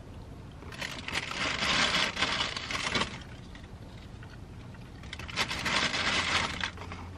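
Close-up crunchy chewing of tortilla chips, in two spells of a couple of seconds each.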